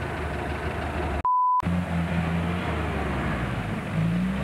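Off-road 4x4 engines running in the mud during a tow recovery, rising in pitch near the end as one is revved. About a second in, all other sound cuts out for a moment and a short steady beep sounds.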